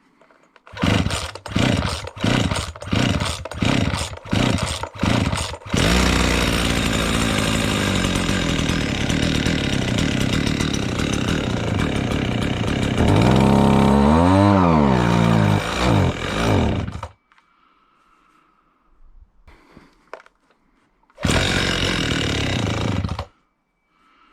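Husqvarna 240R brushcutter's two-stroke engine running after a carburettor rebuild: first a string of short bursts of revving, then a steady run whose pitch rises and falls a couple of times before it stops; a second brief burst of running comes near the end.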